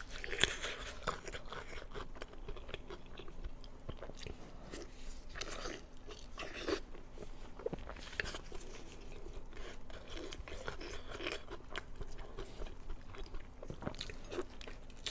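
A person chewing and biting food close to the microphone, with irregular crunching and wet mouth clicks.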